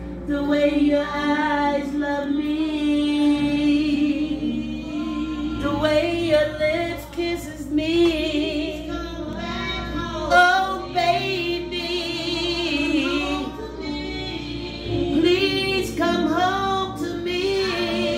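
A woman singing a slow melody with a wide vibrato over instrumental accompaniment.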